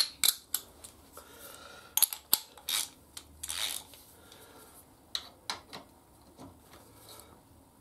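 Metal wrenches working the 13 mm nut and bolt of a motorcycle's gear shift lever: sharp metallic clicks and knocks with a few brief scrapes.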